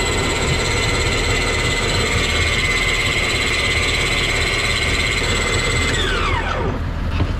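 A small electric motor winding in line, whining at a steady high pitch over the low rumble of a boat engine, then spinning down with a quickly falling pitch and stopping about six seconds in.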